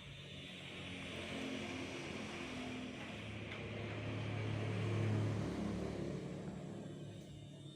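A motor vehicle's engine passing by, growing louder, loudest about five seconds in, then fading away.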